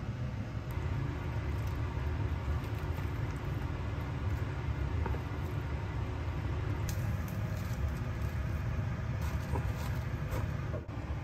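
A steady low rumble throughout, with a few faint light clicks and taps in the second half as ingredients go into a pot.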